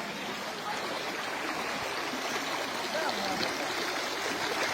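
Water gushing up out of the ground after an earthquake, a steady rushing like a flowing stream.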